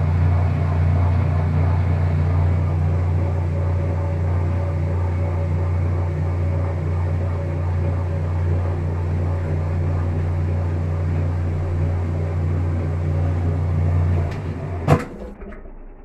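Kenmore top-load washing machine running with a steady low motor hum, which cuts off about fourteen seconds in, followed a moment later by a single sharp click.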